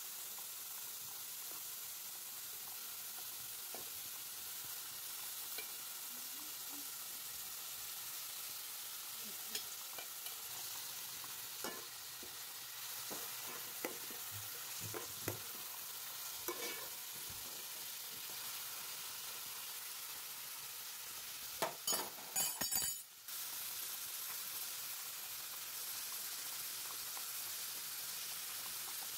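Sliced onions frying in oil in a metal pot, a steady sizzle, with a spoon now and then scraping and clinking against the pot as they are stirred. A quick run of sharp knocks comes about three-quarters of the way through.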